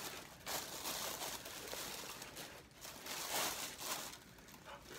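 Plastic cooking bags crinkling and rustling in irregular bursts as hands dig through seafood boil inside them.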